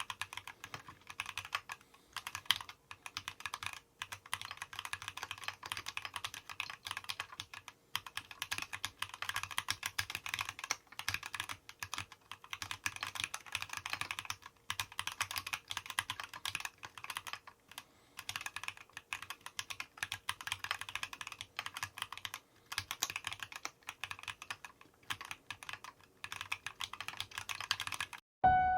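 Mechanical keyboard being typed on continuously: a quick stream of key clacks broken by short pauses.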